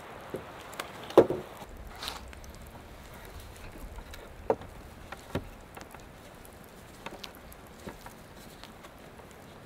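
Wood knocking against wood as a branch is handled and set against a log roof: a few separate sharp knocks, the loudest about a second in.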